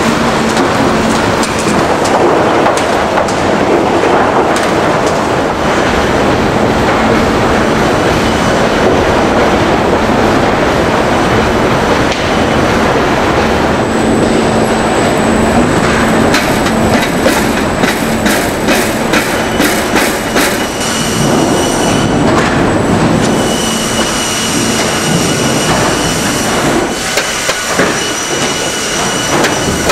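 Steady clatter and rumble of sawmill chain and roller conveyors carrying squared timber, with wood knocking against wood and steel. Stretches of rapid clicking come past the middle and again near the end, and a thin, high, steady whine runs through the second half.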